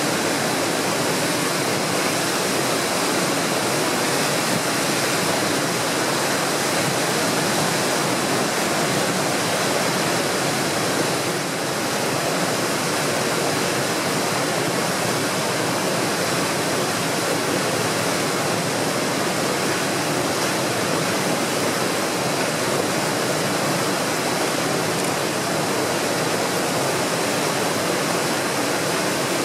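Tidal rapids rushing steadily, with whitewater breaking over a large standing wave during a strong tidal exchange.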